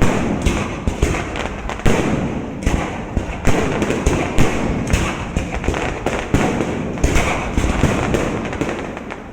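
Fireworks display: sharp bangs of bursting shells in quick, irregular succession, one or two a second, over a continuous dense crackle and rumble.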